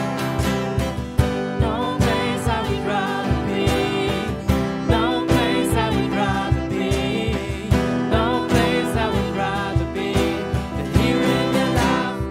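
Worship band playing a slow praise song: strummed acoustic guitar over a steady beat, with a voice singing from about two seconds in.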